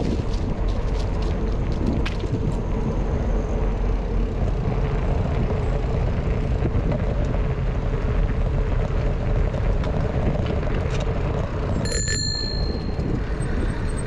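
A bicycle bell rung once about twelve seconds in, a short bright ring over a steady low rumble of riding noise.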